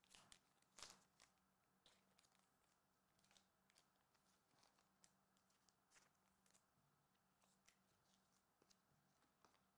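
Near silence, with a few faint, short clicks and rustles from trading cards and foil packs being handled on a table mat. The clearest of them comes about a second in.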